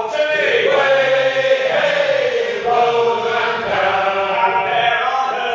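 A men's shanty group singing a sea shanty unaccompanied, with long held notes.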